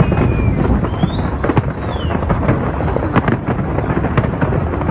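Large fireworks display: a dense run of bangs and crackles over a continuous deep rumble, with a few high sliding whistles in the first two seconds.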